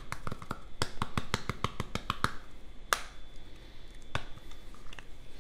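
A hand tapping a spice jar to shake ground ginger into a bowl of sauce: a quick run of light taps for about two seconds, then a few scattered taps.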